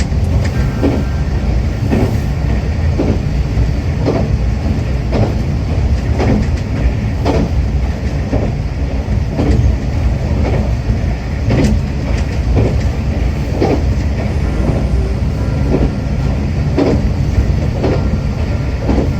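Akita Nairiku Line diesel railcar running along the track: a steady low rumble with wheels clicking over rail joints about once a second.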